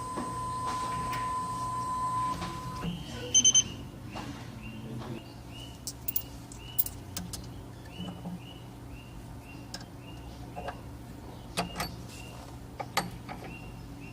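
Small CNC engraving machine's stepper motors running with a steady whine that stops about three seconds in. Three quick beeps follow, then a string of short repeated tones with scattered clicks.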